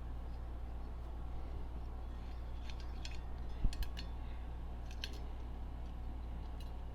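Small metal parts of a fire alarm pull station being worked loose and handled during disassembly. A few light clicks come about three seconds in, with a soft knock between them and another click about two seconds later, over a steady low hum.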